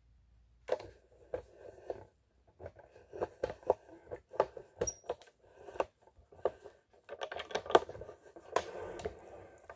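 Irregular clicks, taps and scratchy rustling from hands handling the wires and black plastic dimmer module of an opened touch-lamp base. The handling is densest near the end.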